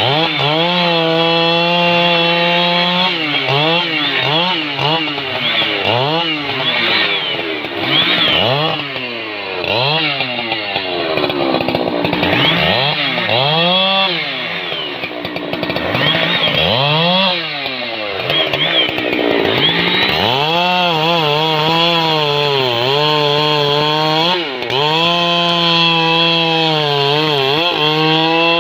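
Husqvarna 3120 XP, a big two-stroke chainsaw, running at full throttle as it cuts through rain tree (trembesi) logs. The engine pitch holds steady in the cut, swings up and down again and again through the middle as the throttle is blipped and the load changes, then settles back into a steady cut.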